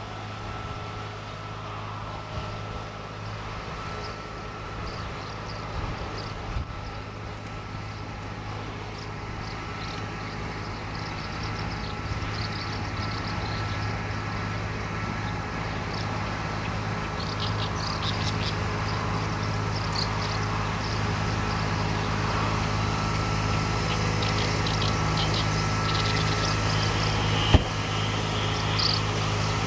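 A steady low mechanical hum, like a vehicle engine, that slowly grows louder, with faint high chirps in the second half and a single sharp knock near the end.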